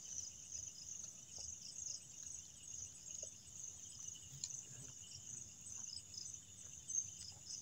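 Night insects chirping in a steady high chorus of repeating pulsed notes, with faint rustling from movement through grass.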